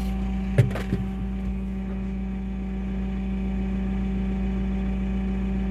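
JCB telehandler's diesel engine running steadily at idle, heard from inside the cab, with two short knocks in the first second.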